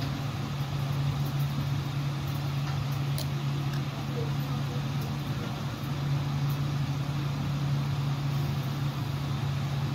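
A steady low hum of a motor running, with an even hiss over it.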